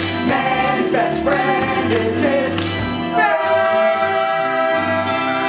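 Performers in a stage musical singing a song-and-dance number together over a band accompaniment, moving to one long held note about three seconds in as the number closes.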